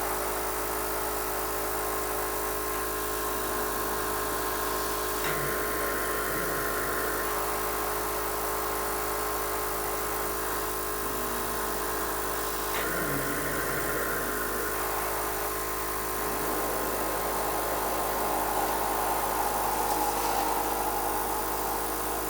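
Cough assist machine's blower running steadily with a hum. Its sound changes about five seconds in and again near thirteen seconds as it switches between blowing air in and pulling it back out through the face mask.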